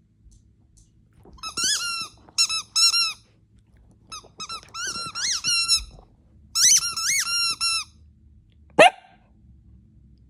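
A dog's rubber squeaky toy squeaked over and over in three quick runs of high-pitched squeaks, followed near the end by one short sharp squeal.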